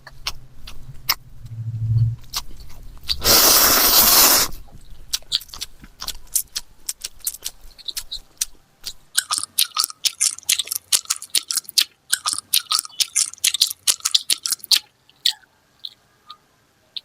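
A person chewing and crunching food close to the microphone, in many sharp crunchy clicks, with a dense run of rapid crunching in the second half. A loud rushing noise lasts about a second and a half near the start.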